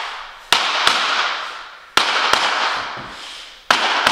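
Hammer striking a tapping block against the edge of laminate flooring planks, driving them in until they lock down flush. The strikes come in pairs a moment apart, about every second and a half, and each pair leaves a long fading echo.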